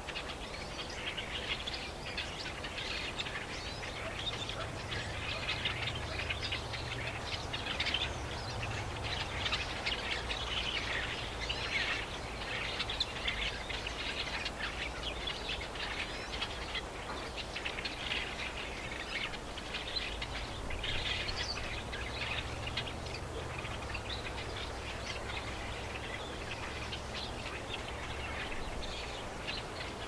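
Many small birds chirping and singing at once, a dense chorus of short overlapping calls, with a low steady rumble underneath for much of the time.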